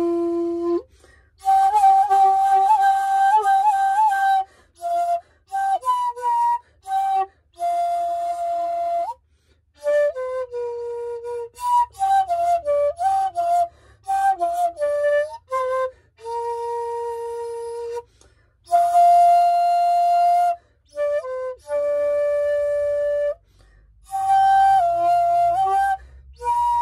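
Bamboo shakuhachi played solo: a slow melody of separate held notes with short gaps between phrases. Some notes waver in pitch, and there is airy breath noise over the tone.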